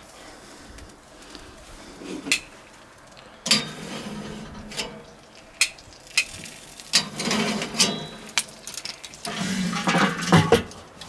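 Scattered sharp metallic clinks and knocks of metal cooking gear being handled, several of them one to two seconds apart, over a faint low rushing.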